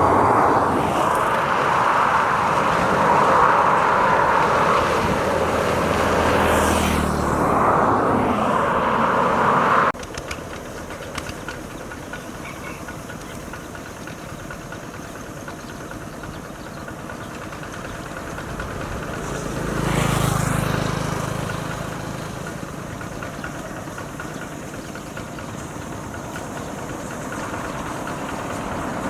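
Outdoor rural ambience with a motor vehicle passing close by twice, about seven seconds in and again about twenty seconds in, swelling and fading each time. A loud steady mid-pitched hiss fills the first ten seconds and stops abruptly.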